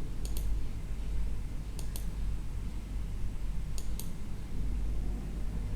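Sharp double clicks, three pairs about two seconds apart, over a steady low hum.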